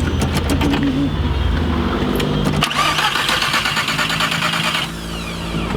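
Car engine running with a low rumble. About two and a half seconds in, a harsher whirring joins it for roughly two seconds, then it settles back to a steady run.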